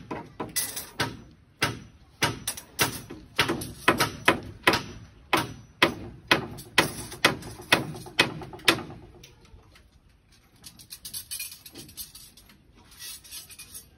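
Steel rebar stirrups clinking against each other and against the main bars as they are worked onto a beam's rebar cage. There are many sharp, irregular clinks, two or three a second, which give way to softer, quicker ticking after about nine seconds.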